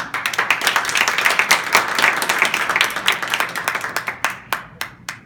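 A small audience applauding, with dense clapping that thins to a few last single claps near the end.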